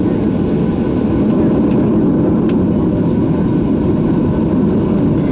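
Steady rumble of a Boeing 737-700's CFM56 jet engines heard inside the passenger cabin, with a faint steady whine and a single sharp click about two and a half seconds in.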